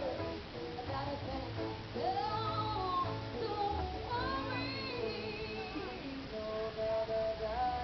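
Live music: voices singing a melody, in a poor-quality recording.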